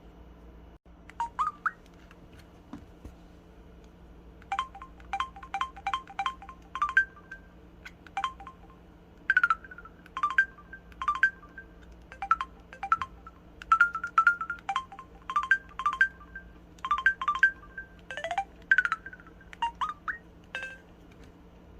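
Samsung SPH-W8350 'Magic Hole' mobile phone playing one of its built-in sound effects: a long run of short, chirpy electronic notes, several a second, some gliding in pitch.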